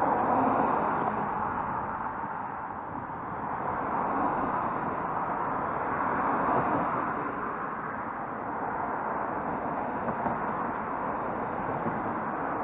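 Road traffic: several cars driving past one after another, the tyre and engine noise swelling as each one passes and fading away.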